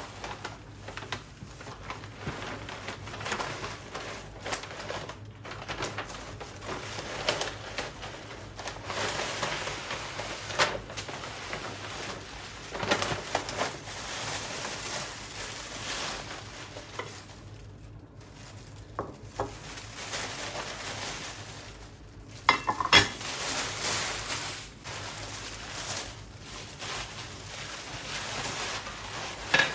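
Kitchen work: dishes and utensils clinking and knocking over a steady hiss, with a sharper clatter about 23 seconds in.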